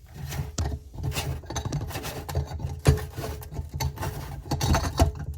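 Irregular scraping, clicking and knocking of a metal screwdriver and hands working at a kitchen sink's drain fitting, with a few sharper knocks about three seconds in and near the end.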